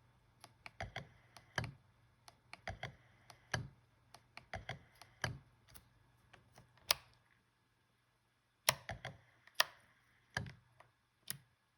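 Fujifilm X-H1's in-body image stabilisation unit clunking and clicking, a run of sharp clicks and low knocks in irregular clusters as the camera is switched on and the playback button pressed, with a brief total silence about seven and a half seconds in before more clunks. The owner finds this noise louder than on other camera models.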